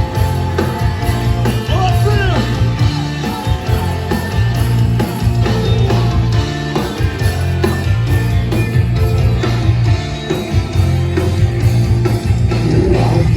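Live rock band playing an instrumental passage between sung lines: guitars over a steady bass and drums, with a few bending guitar notes.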